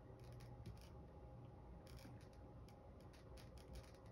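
Faint, irregular clicking and scratching of a chihuahua puppy's claws on a tipped-over plastic bin as it shifts its feet and paws at it, in small clusters of quick ticks.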